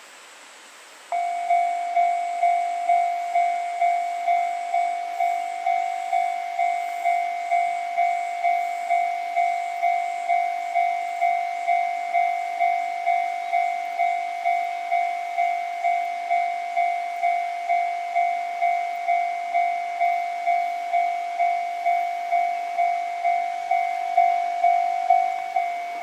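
Japanese level-crossing warning bell starting about a second in and ringing steadily at about two strokes a second, each stroke a ringing tone that fades quickly: the alarm that a train is approaching the crossing.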